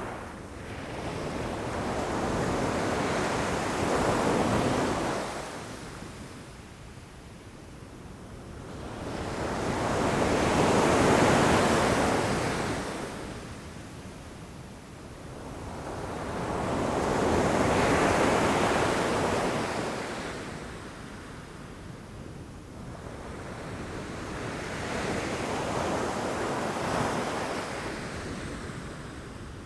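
Ocean waves breaking against rocks, surging up and washing back four times, about one wave every seven seconds.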